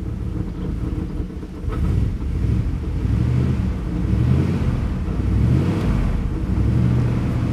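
Dodge Ram 1500's 5.9-litre V8 running, heard from inside the cab: the revs climb from idle about two seconds in and stay up around 2,500 rpm, rising and falling a little.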